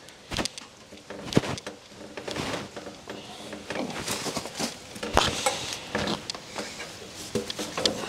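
Irregular metal clanks and knocks, a few of them sharp, from a Frontier portable band sawmill's log clamp and backstops as a log is pushed against the backstop and clamped down.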